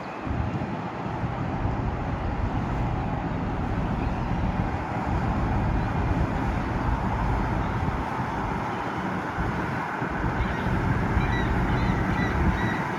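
A steady low rumble with wind gusting on the microphone, and faint high chirps near the end.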